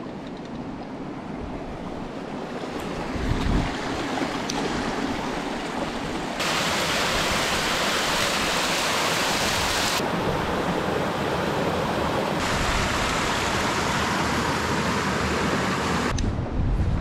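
Water running over a rocky riverbed. About six seconds in it gives way to the much louder, steady rush of a nearby waterfall, which changes tone abruptly twice. Near the end it drops back to gusty river and wind sound.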